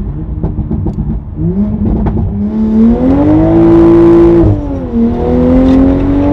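2020 Toyota Supra's engine running with no exhaust fitted, loud, under hard acceleration. The revs climb from about a second in, drop sharply at an upshift just past the middle, then climb again.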